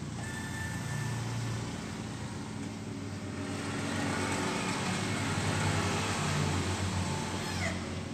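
Steady mechanical hum of a Mitsubishi L300 pickup's hydraulic bumper system as the modified front bumper is lowered, growing a little louder about halfway through.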